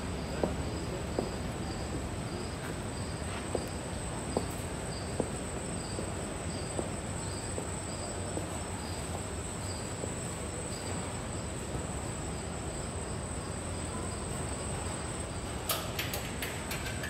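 Crickets chirping: a steady high trill with a regular chirp repeating a little faster than once a second, over a low steady rumble, with a few faint clicks.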